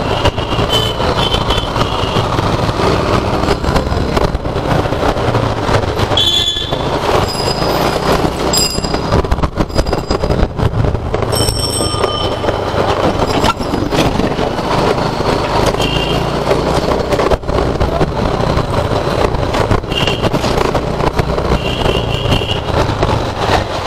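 TVS Jupiter scooter ridden through city traffic, heard from a helmet-mounted camera mic: a steady rumble of engine, road and wind. Several short horn toots from the traffic come through, about 6 seconds in and again a few times in the last third.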